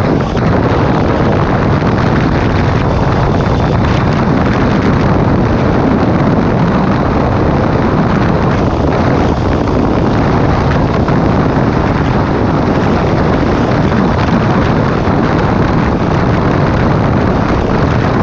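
Sport motorcycle cruising steadily at highway speed. Heavy wind noise on the rider-mounted microphone covers the engine's steady running.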